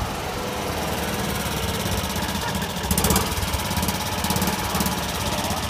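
BMW Isetta bubble car's single-cylinder engine idling with a rapid, even beat, briefly louder about halfway through.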